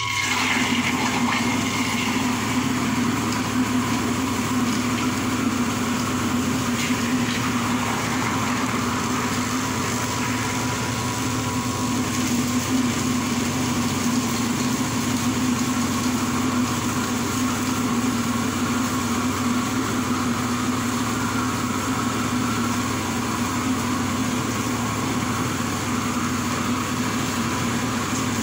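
Electric soybean grinder starting up and running steadily as it grinds soaked soybeans with water into raw soy milk: a constant motor hum under a grinding whirr.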